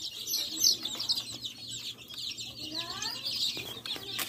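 A brood of young chicks peeping constantly, a dense overlapping chorus of short, high-pitched cheeps.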